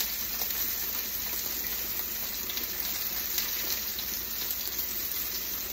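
Steady hiss of a kitchen tap running as a plate is washed, together with steaks sizzling in a smoking-hot frying pan.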